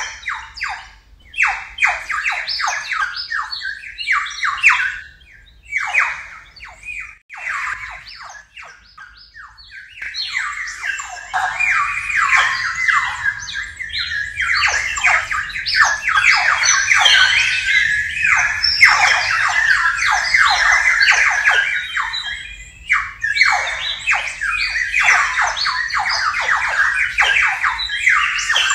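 A traditional clay water whistle blown to imitate bird chicks chirping, with the recordings digitally processed and layered. Many short, falling chirps come sparsely at first and ease off for a few seconds, then swell into a dense, overlapping chorus from about ten seconds in.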